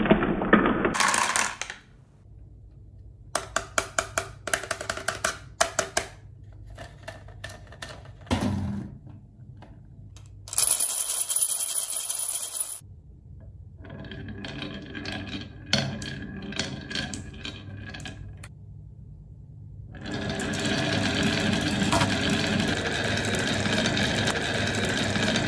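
Glass marbles rolling down a wavy wooden HABA slope and clacking into a plastic toy dump truck's bed, then a series of sharp clicks as they knock together. About eleven seconds in, a loud bright rattle of marbles in a drinking glass. In the last five seconds, a dense, continuous clatter of many marbles rolling along the wooden track.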